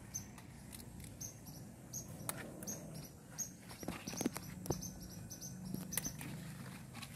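Leafy garden plants rustling and crackling as they are handled and picked: a quick, irregular string of short crackles, busiest about halfway through.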